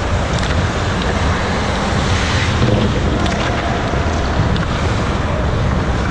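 Ice hockey rink ambience: a steady rushing noise heavy in the low end, with a few faint sharp clicks from the play at the far end of the ice.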